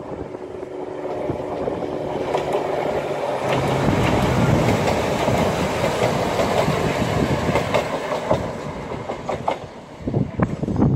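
Two coupled Class 170 Turbostar diesel multiple units approaching and passing: an engine hum grows louder, then wheel and rail noise peaks as the cars go by and fades away. A few sharp clicks near the end.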